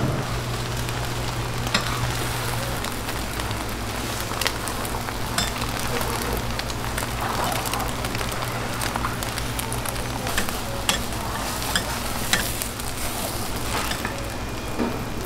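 Beaten egg sizzling on a hot steel flat-top griddle while a gimbap roll is wrapped in the egg sheet. A steady low hum runs underneath, with a few scattered light clicks.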